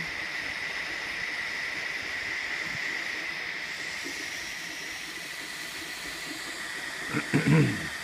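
Two HHO (oxyhydrogen) burner tips burning with a steady hiss and a faint high steady whistle. A brief loud voice sound comes near the end.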